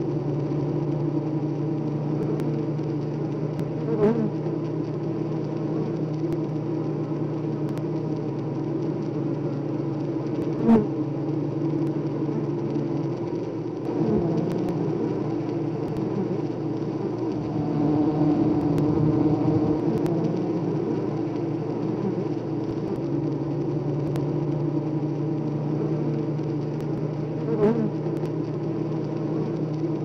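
Honeybee colony humming steadily in the hive, a deeper part of the hum fading out for several seconds in the middle and coming back. A few short clicks stand out above it.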